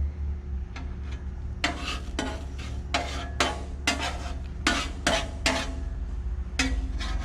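Metal spatula scraping across the steel top of a Blackstone griddle in about nine short, uneven strokes while an egg omelette fries, over a steady low hum.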